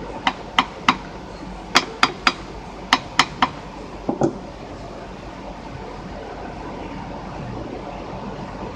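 Sharp light taps, three quick ones at a time, repeated three times, then a duller double knock, over a steady background hiss.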